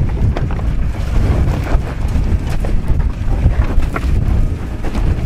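Wind buffeting the microphone over the low rumble of a Toyota 4Runner crawling slowly over rocks, with a few sharp clicks scattered through.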